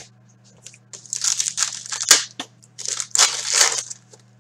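Wrapper of a hockey card pack being torn open and crinkled by hand, in several rustling bursts. A sharp tap comes right at the start.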